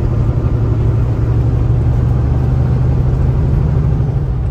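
Kenworth T680 semi truck heard from inside the cab while cruising on the highway: a steady low engine drone with tyre and road noise.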